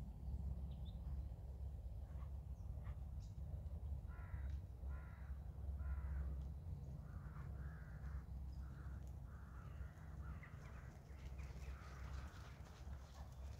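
Crow cawing in a run of about a dozen short calls, roughly two a second, starting about four seconds in, over a steady low rumble.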